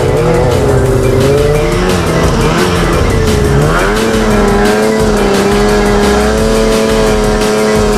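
Ski-Doo snowmobile engine running under throttle, its pitch wavering, then dipping and climbing back about three and a half seconds in, and holding steady after that.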